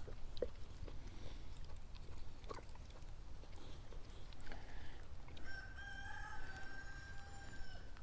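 A rooster crowing once, starting about halfway through, ending in a long flat note held about two seconds, over a low steady rumble.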